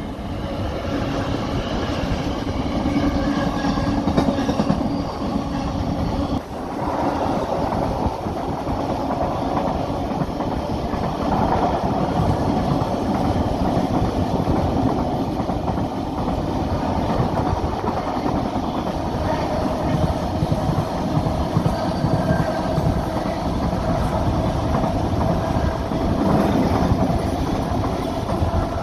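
Freight train passing close by: a diesel-era freight locomotive goes by in the first few seconds, then a long line of loaded container wagons rolls past in a steady, continuous rumble of wheels on rail.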